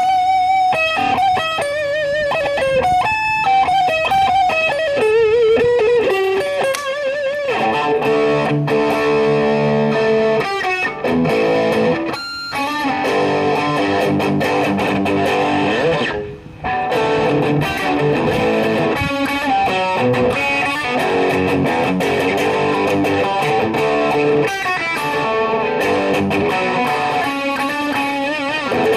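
Fender YJM Stratocaster electric guitar played through a Marshall DSL40C valve amp and DOD YJM308 overdrive. It plays single-note lead lines with wide vibrato for the first several seconds, then fuller sustained notes and chords, with a brief break about halfway.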